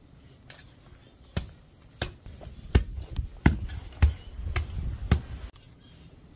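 A regular series of about seven dull thuds with a sharp attack, roughly one every two-thirds of a second, stopping a little after the middle.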